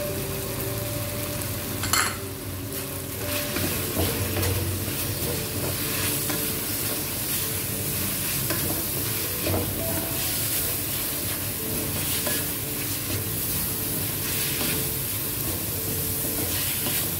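Chicken and vegetables sizzling in a hot metal karahi while a wooden spatula stirs and scrapes them around the pan. A sharp knock about two seconds in.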